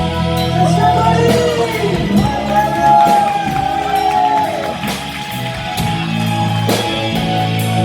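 Instrumental break in a pop-rock song: a lead melody with bending, gliding notes over guitar, bass and a steady drum beat.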